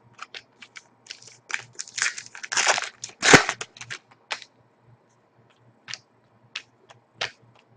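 Hands handling hockey trading cards and their crinkly packaging: scattered light clicks and rustling, with a burst of crinkling in the middle and one sharp snap about three seconds in.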